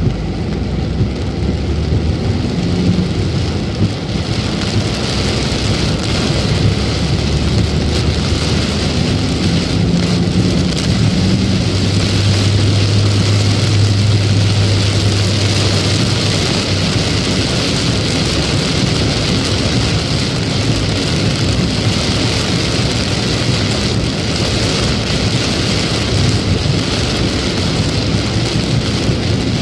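Heavy rain beating on the car's roof and windscreen, heard from inside the moving car, with its road noise underneath. A low hum swells from about twelve to sixteen seconds in.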